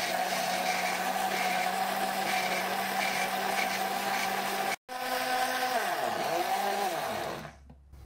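Countertop blender motor running at speed, blending a liquid batter of eggs, milk and oil, with a steady hum and whine. It cuts out for an instant about halfway, then is switched off and spins down with a falling pitch about seven seconds in.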